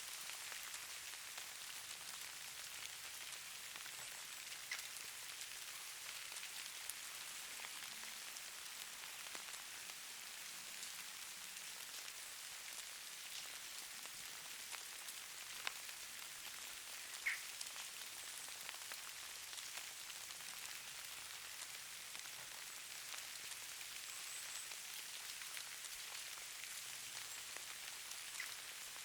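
Steady soft hiss of falling precipitation, like rain pattering on a surface, with scattered light ticks of drops or pellets and one sharper tick a little past halfway.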